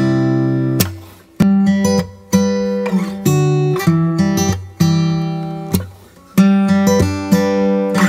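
Background music of acoustic guitar strumming chords, a new chord struck about once a second and left to ring down.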